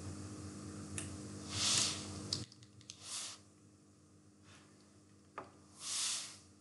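A few faint, sparse clicks from a computer mouse or keyboard, with soft hissing swells between them. A low hum underneath drops out about two and a half seconds in.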